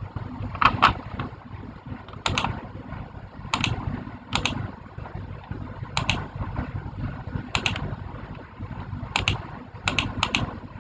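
Keys clicking one press at a time, often a quick double click, every second or so, over a steady low rumble.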